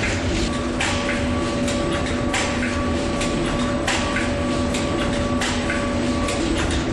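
Automated stator-assembly machinery running on an electric-motor production line: a steady mechanical hum with a few held tones, broken by irregular sharp clicks and clacks every fraction of a second.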